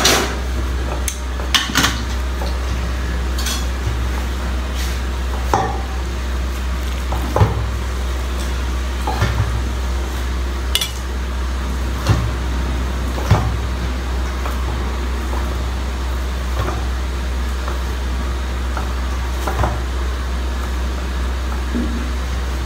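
Metal spoon clinking and scraping against an aluminium pot as momo filling is scooped out, in scattered knocks every second or two, with a louder clatter of the aluminium pan right at the start. A steady low hum runs underneath.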